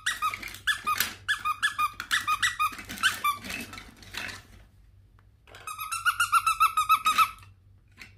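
Small purple squeeze toy squeaking as it is squeezed over and over: quick runs of short squeaks, a pause of about a second just past halfway, then a faster run.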